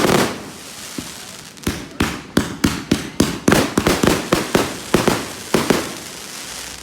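Fireworks going off: one loud bang at the start, then a rapid string of about fifteen sharp bangs over roughly four seconds.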